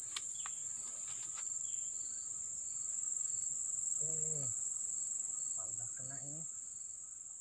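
Steady high-pitched drone of tropical insects, with a second insect chirping in short pulses about twice a second.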